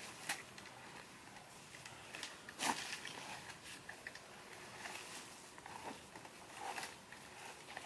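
Scattered soft rustles and knocks from a woven carrying basket and its strap being handled and shifted on dry, leaf-covered ground, the loudest a little under a third of the way in.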